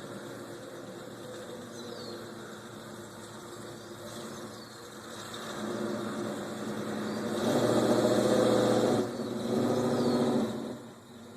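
Chevy El Camino engine running unevenly after a hard start, then given two louder bursts of throttle about eight and ten seconds in before it drops away near the end.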